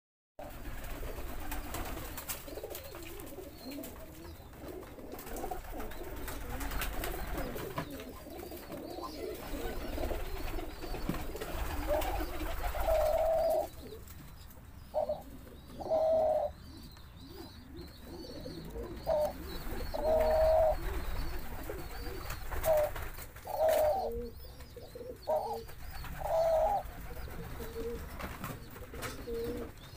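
Collared doves cooing, each phrase a short note followed by a longer held one, repeated about every three to four seconds through the second half.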